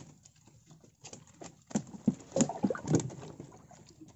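Wire-mesh fish trap being handled over a wooden canoe: scattered knocks and rattles of the mesh frame against the boat. About two seconds in comes a flurry of louder knocks and short squeaky grunts from the trapped fish, which is called angry right afterwards.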